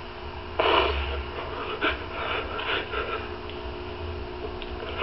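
A man crying quietly: a loud sniff about half a second in, then quieter sniffles and breaths over the next couple of seconds, over a steady low hum.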